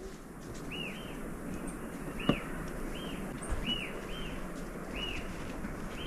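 A bird calling a short arched whistle over and over, about eight times at roughly one a second, over a steady rushing background. There is a single sharp click about two seconds in.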